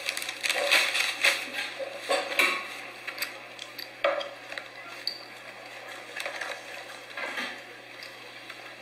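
Crinkling and rustling of a clear plastic bag, with small clicks and clatter as someone rummages through it. Busiest in the first three seconds, with a sharp knock about four seconds in, a few more rustles around seven seconds, then quieter.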